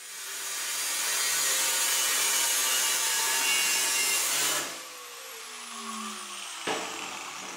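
Angle grinder with an unguarded cut-off wheel cutting through a steel exhaust header tube for about four and a half seconds, then lifted off the cut and spinning down with a falling whine. A short knock comes near the end.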